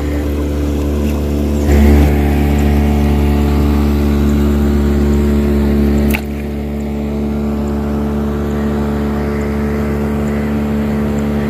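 A boat engine running steadily at one even pitch, louder between about two and six seconds in.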